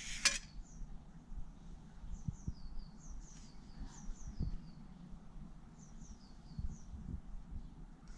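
Small songbirds chirping: short high chirps in quick pairs and triplets, repeated every second or so. A brief noisy clatter comes right at the start, with faint low thumps underneath.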